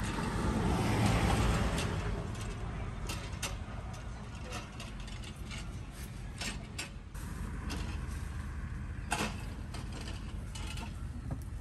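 Scattered sharp clicks and knocks of kitchen utensils, irregular and sometimes in quick pairs, over a steady low rumble of street traffic.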